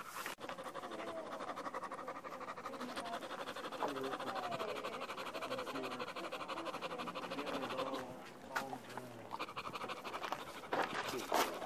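Dog panting quickly and steadily, worn out. The panting lets up about eight seconds in. Faint voices are in the background.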